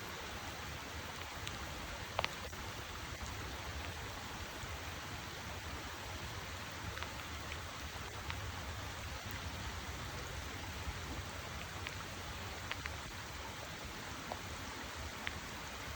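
Steady rushing water noise with scattered faint ticks.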